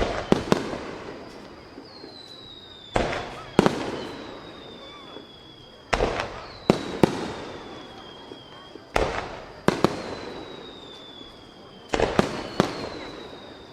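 Aerial firework shells bursting about every three seconds, each a sharp bang followed by a second bang about half a second later and a fading crackle. A thin falling whistle sounds between the bursts.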